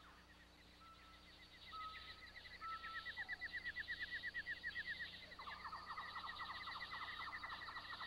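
Quiet tropical forest wildlife ambience. A fast, even pulsing trill and a high buzzing chorus run throughout. A few short clear whistles come in the first few seconds, and a rapid rattling call starts about five seconds in.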